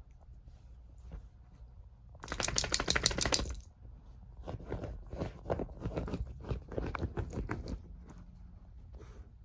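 Wirehaired dachshund making a loud, fast run of short clicking noises about two seconds in, then a quieter, longer run of irregular short noises.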